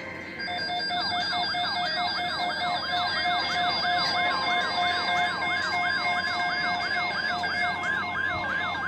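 Electronic alert siren of a weather radio sounding for a NOAA Weather Radio alert: rapid repeating downward sweeps, about three a second, over steady beeping tones. A steady alarm tone joins near the end.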